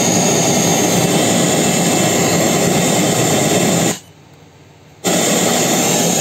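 Radio static from the AIWA HS-JX505's radio tuner: a steady, loud hiss between stations that cuts out suddenly about four seconds in, returns a second later, and cuts out again.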